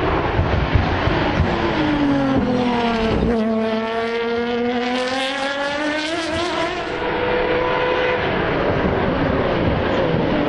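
High-revving engines of open-wheel single-seater racing cars lapping a circuit. The engine note drops to a low point about three seconds in as a car slows, then climbs as it accelerates away.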